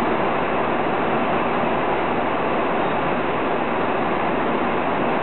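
Steady noise inside a jet airliner's cabin in flight, from the engines and the air rushing past the fuselage.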